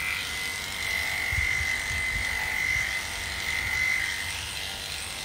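Electric dog-grooming clippers running as they cut up through the coat of a dog's hind leg, a steady high hum that fades about four seconds in. A few low thuds of handling come in under it.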